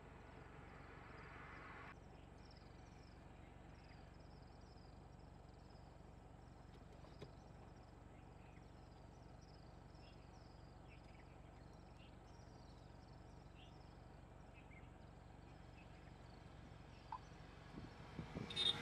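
Quiet wild bush ambience: faint, high, short falling chirps repeat about every half second through most of the stretch. A faint hiss stops abruptly about two seconds in, and a few knocks and a louder rustle come near the end.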